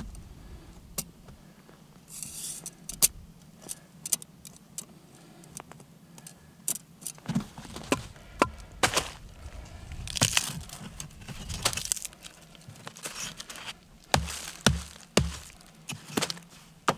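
Pieces of split firewood knocking and clacking together as they are handled and set down by hand, with crunching and rustling between the knocks. Three dull thumps come close together about two seconds before the end.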